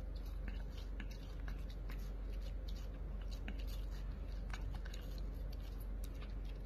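A puppy licking and nibbling a slice of watermelon: faint, irregular wet clicks and smacks of its mouth on the fruit.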